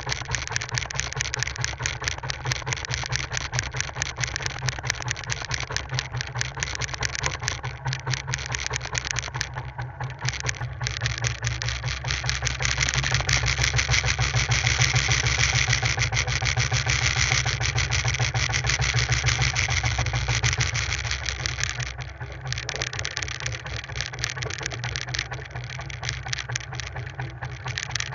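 A small fishing boat's engine running steadily with a rapid even beat. It grows louder, with more hiss, for several seconds in the middle, then settles back.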